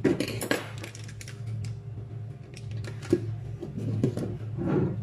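Metal cutlery clattering and clicking on a plastic cutting board as a butter block and spoons are handled, in a string of irregular small knocks, with one sharp knock about three seconds in.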